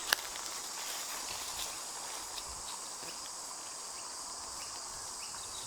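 Steady high-pitched chorus of insects, with a single sharp click just after the start.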